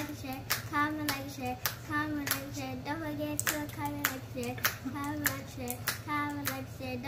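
Steady rhythmic hand clapping, about two claps a second, with a voice singing a chant over the beat.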